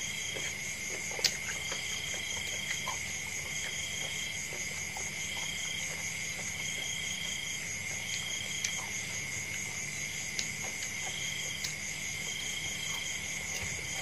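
Chorus of night-calling insects: a steady high trill, with a second call repeating in short spells about once a second. Faint clicks of eating and handling food come and go, with one sharp click about a second in.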